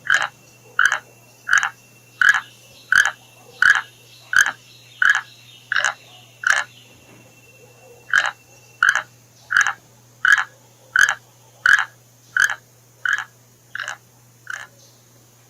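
An animal's short, sharp calls repeated evenly about 1.4 times a second: a run of ten, a brief pause about halfway through, then ten more.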